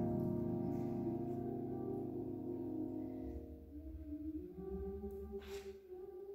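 A sustained electric keyboard chord slowly dying away, followed from about three and a half seconds in by quieter, softly held tones that rise and fall slightly, and a brief hiss about five and a half seconds in.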